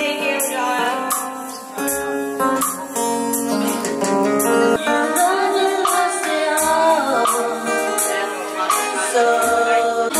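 Live band playing a Filipino pop-rock (OPM) song: a voice singing over strummed guitar, with a steady beat.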